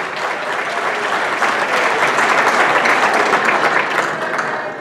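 An indoor audience applauding, the clapping swelling to its loudest in the middle and tapering off near the end.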